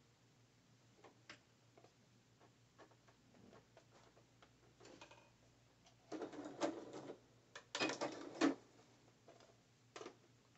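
Sewing machine stitching in two short runs about six and eight seconds in, with scattered small clicks of the machine and fabric being handled between them.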